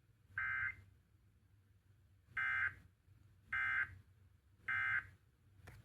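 Emergency Alert System end-of-message data bursts (the SAME digital code) played through a radio receiver: four short warbling data-tone bursts, the last three about a second apart, marking the end of an EAS test message. A click sounds just before the end.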